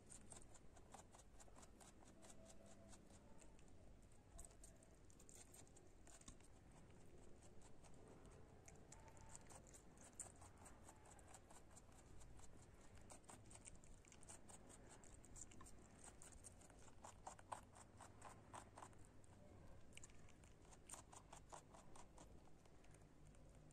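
A rabbit chewing shredded cabbage: faint, rapid runs of small crisp crunches with brief pauses between mouthfuls.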